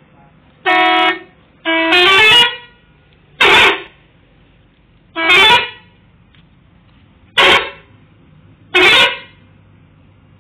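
Telolet horn, the multi-note musical horn used on Indonesian buses, sounding six short blasts a second or two apart. Several of the blasts play a quick run of stepping notes.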